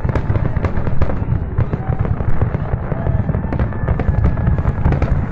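Aerial fireworks going off in rapid succession: a dense run of sharp bangs and crackles over a continuous deep rumble.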